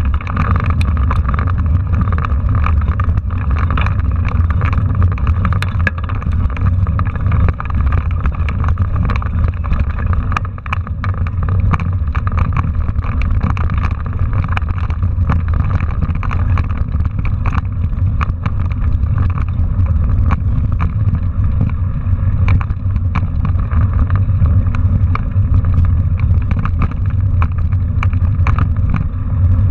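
Mountain bike riding over cobbles and a rocky dirt road, heard from a camera on the handlebars: a steady low rumble of wind and road vibration with frequent short clicks and rattles from the bike and its tyres on loose stones.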